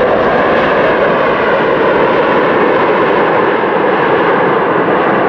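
Jet engines of a four-engine Boeing 747 airliner as it touches down and rolls out along the runway, a steady loud rushing noise.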